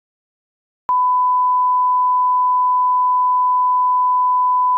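A steady 1 kHz line-up test tone, one pure unchanging pitch, switching on with a click about a second in and cutting off with a click at the end.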